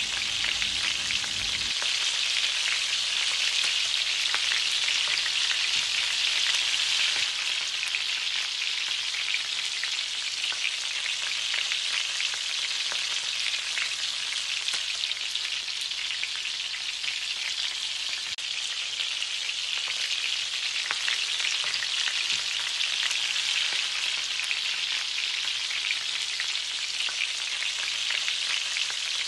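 Marinated chicken pieces frying in hot oil in a kadhai: a steady sizzling hiss full of small crackles. The ladle turns the pieces now and then. The chicken is being part-fried, to about 60%.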